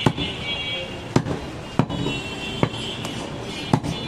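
Large butcher's knife chopping goat meat on a wooden chopping block: about five sharp chops at uneven intervals, each blade strike thudding into the wood.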